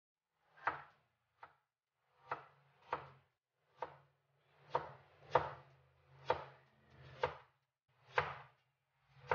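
Cleaver chopping peeled taro corm on a cutting board: about eleven separate knife strikes at an uneven pace, roughly one a second.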